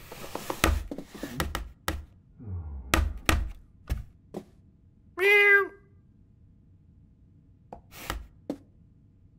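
A cat's food bowl knocked and shoved across the floor in a quick run of thunks and clatters, followed about five seconds in by a single meow. A few more knocks of the bowl come near the end.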